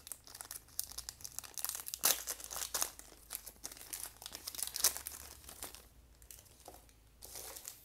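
Foil-lined trading-card booster pack wrapper crinkling and tearing as it is pulled open by hand, a dense crackle for about six seconds, then thinning out, with a short rustle near the end.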